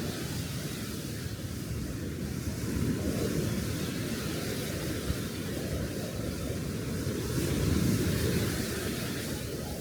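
Wind rumbling on the microphone over the steady wash of waves on a sea beach, swelling louder about eight seconds in.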